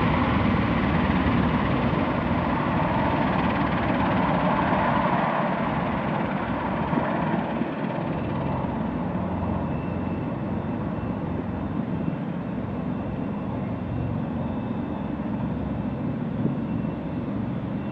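Bell Boeing CMV-22B Osprey tiltrotor in flight, its proprotors and twin turboshaft engines making a steady rumbling drone that slowly fades and loses its highs as it flies away. A faint high whine can be heard from about halfway.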